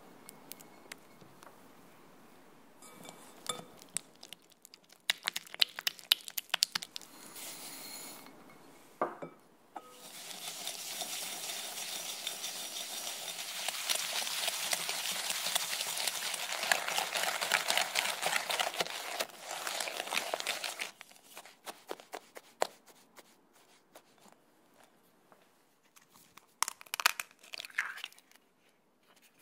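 A silicone spatula pressing and scraping soft butter in a glass bowl, with scattered clicks against the glass. Then a wire whisk beats the butter against the bowl in a fast, steady rattle for about ten seconds, the loudest part. Near the end come a few sharp cracks as an egg is broken over the bowl.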